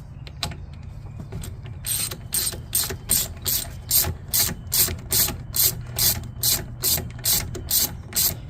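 Hand ratchet wrench with a 5/8-inch socket clicking through repeated strokes, about two a second, starting about two seconds in, as a fastener on the rear brake is worked loose.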